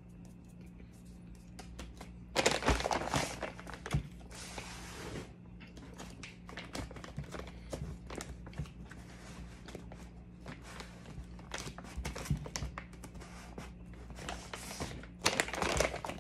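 Plastic snack bag crinkling and rustling as it is handled and worked open, in irregular bursts with small clicks and knocks. The rustling is loudest about two to five seconds in and again near the end, over a steady low hum.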